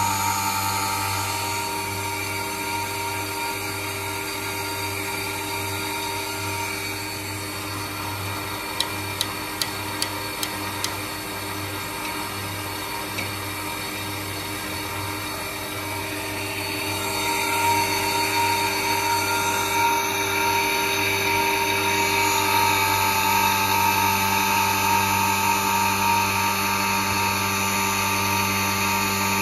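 Schneeberger Centromat grinding machine running on test, a steady mechanical hum and whine. About six sharp clicks come between nine and eleven seconds in, and from about seventeen seconds in the machine runs louder and brighter.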